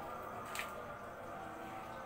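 Background music with many held tones, and one brief sharp click about half a second in.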